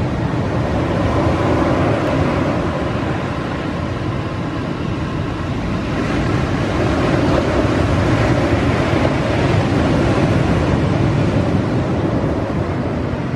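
Breaking ocean surf and wind on the microphone: a loud, steady rushing noise that swells and eases slightly.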